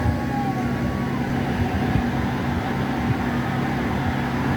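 Steady low mechanical drone with a constant hum.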